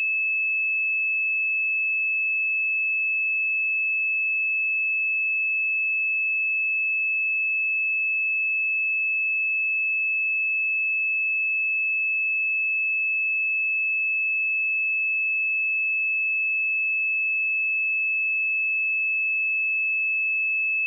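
A pure 2607 Hz sine-wave test tone, held steady at one pitch and level, a high, piercing whistle-like note.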